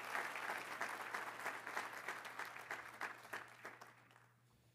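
An audience applauding, the clapping thinning out and dying away over about four seconds.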